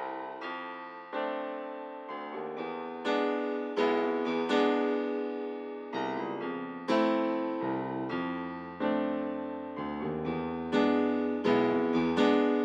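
Background music on piano: slow notes and chords struck about once or twice a second, each one dying away.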